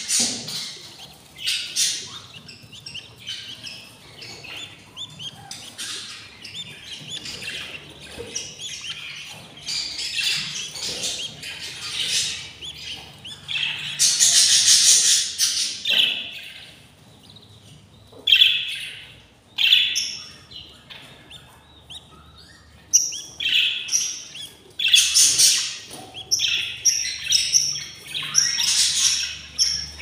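Budgerigars chirping in irregular bursts of high-pitched calls, with short lulls between.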